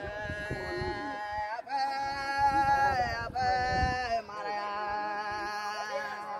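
Voices singing in long held, steady notes, the phrases breaking about every one and a half seconds.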